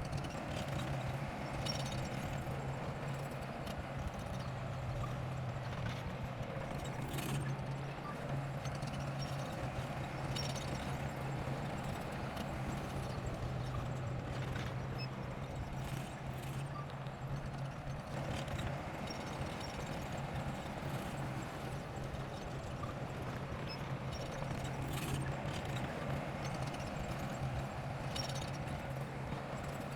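Heavy construction machine's diesel engine running steadily at a low, even pitch, with scattered short clanks over it.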